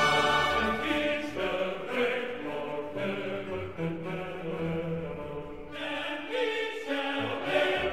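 Choral music with orchestra, the voices holding long chords.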